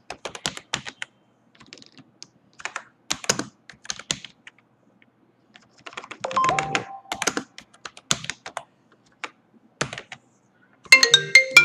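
Computer keyboard typing in irregular bursts of keystrokes. Near the end, a short burst of chime-like music comes in.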